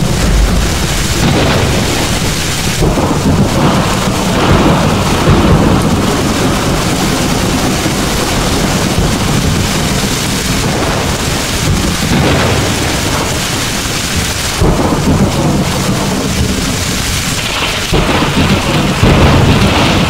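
Steady heavy rain with thunder rumbling again and again. The deep rumbles swell louder about three seconds in, again around fifteen seconds, and near the end.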